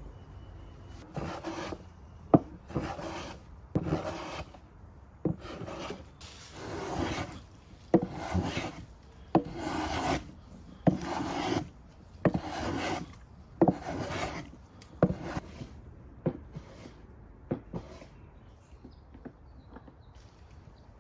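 Hand tool cutting strokes on cypress wood: a repeated rasping scrape about once a second, each stroke starting with a sharp click, dying away after about eighteen seconds.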